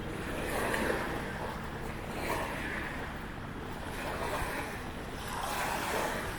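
Small waves washing on a lagoon shore, swelling every second or two, with wind rumbling on the microphone.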